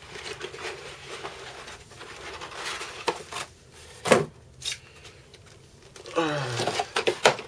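Cardboard packaging being handled on a tile floor: a cardboard sheet and molded pulp inserts rustling, scraping and knocking as they are pulled off a laptop. There are a few sharp knocks, the loudest about four seconds in, and a louder run of scraping near the end.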